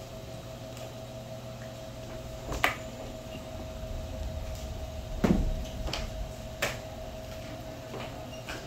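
Markers clicking and knocking against a classroom whiteboard as children write: a few scattered sharp knocks and fainter clicks, the loudest a dull thud a little past halfway, over a steady hum.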